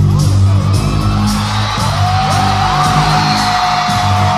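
Live hip-hop concert music over an arena PA, recorded from the crowd: a heavy bass-driven beat with steady percussion hits. Fans are whooping and yelling over it, and a long high held note comes in about two seconds in.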